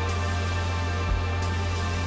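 Background music: sustained held tones over a deep bass note, with one soft low thump about a second in.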